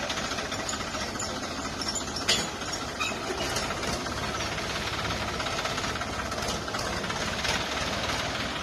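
Mahindra 495 DI tractor's three-cylinder direct-injection diesel engine running steadily, with a sharp knock a little over two seconds in.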